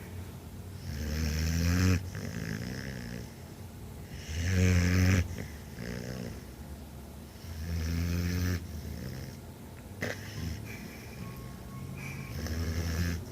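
Pit bull dog snoring in its sleep: four loud snores about three to four seconds apart, each swelling and then stopping abruptly, with quieter breathing in between.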